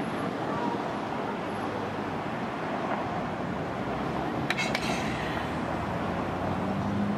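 Steady road traffic noise at a busy street intersection, cars passing, with a couple of light clicks about four and a half seconds in.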